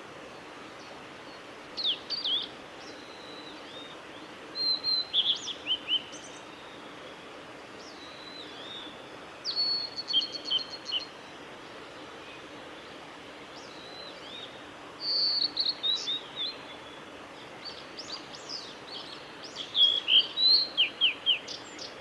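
Male blue-and-white flycatcher singing: five short phrases of high, clear whistled notes with quick falling slurs, a few seconds apart, the last one the loudest, over a steady background hiss.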